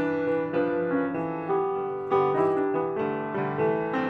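Gentle solo piano music: notes and chords struck about twice a second, each left to ring and fade.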